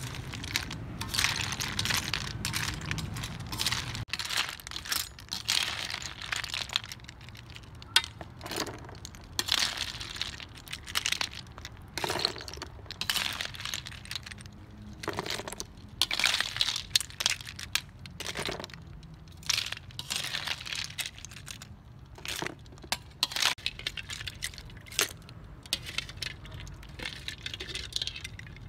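Cooked field snail shells clinking and clattering against a metal ladle and an aluminium wok as they are scooped out and tipped onto a woven bamboo tray, in irregular bursts. A low hum underneath stops about four seconds in.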